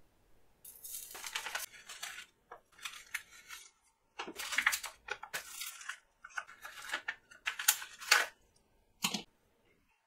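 Plastic blister pack and card backing crinkling and tearing as they are opened by hand, in a run of rustling bursts. Small rubber erasers are then handled and set down, with a single soft knock near the end.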